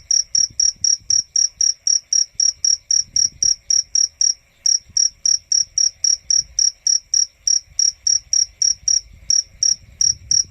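A cricket chirping on and on in evenly spaced, high-pitched pulses, about four a second, with one short break about four seconds in.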